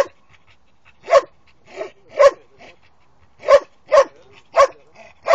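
Young Posavac hound (Posavski gonič) barking at wild boar: about seven short, sharp barks at irregular intervals, some coming in quick pairs.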